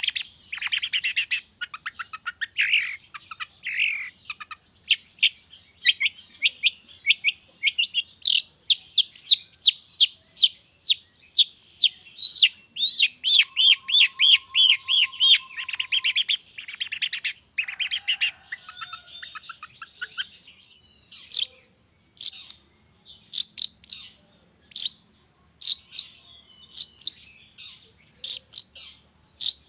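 Long-tailed shrike (cendet) singing a rapid, varied song of chattering and trilled notes, with a fast run of repeated notes midway. From about two-thirds through it changes to sharp, separate calls, roughly one or two a second.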